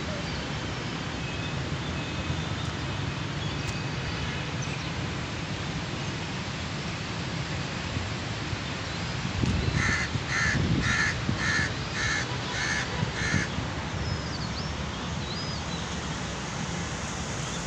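A bird calls about seven times in a quick, even series, a little under two calls a second, beginning about ten seconds in, over a steady background hiss with a few low gusts on the microphone.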